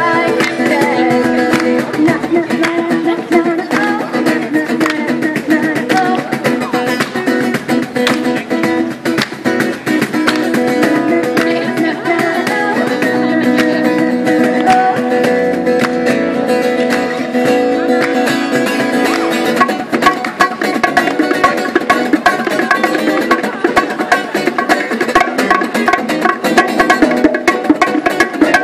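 Small street band playing live: acoustic guitar, a woman singing into a microphone, and hand drums. The drum strokes grow busier and sharper about twenty seconds in.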